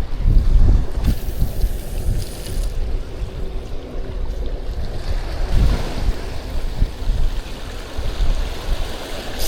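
Wind buffeting the microphone in uneven gusts, over the wash of water.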